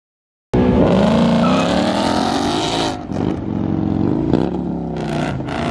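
Ford Mustang engine revving hard under throttle. It starts about half a second in, climbs in pitch for a couple of seconds, dips briefly near three seconds in, then revs on.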